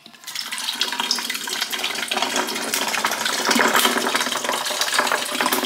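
A can of strawberry lemonade poured into a pitcher over ice: a steady splashing pour that begins just after the start and runs on.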